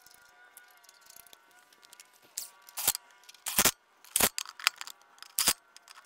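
Faint steady insect trilling, then from about two and a half seconds in about half a dozen short, sharp scraping rustles at uneven intervals.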